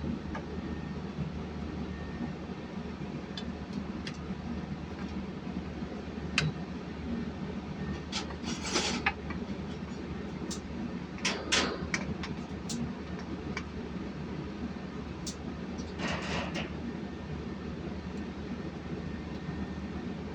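Steady low machinery hum, with scattered sharp metallic clicks and three short scrapes of engine parts and tools being handled.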